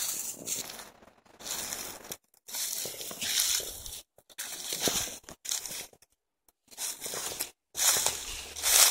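Footsteps crunching through dry fallen leaves and twigs, coming in uneven bursts with brief silent gaps between them.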